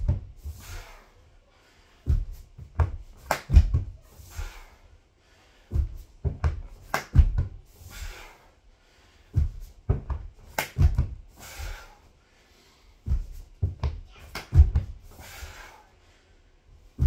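Burpees on a wooden floor: hands and feet thud down in a quick cluster of knocks about every three and a half seconds, each cluster followed by a short, sharp breath.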